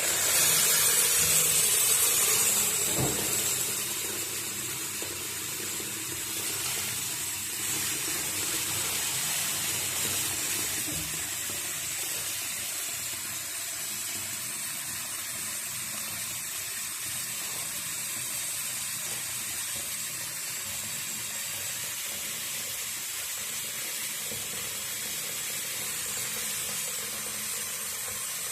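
Tap running into a washbasin, filling it up towards the overflow to test the newly fitted waste pipe and trap for leaks. The flow is louder for the first three seconds or so, then runs on steadily and more quietly.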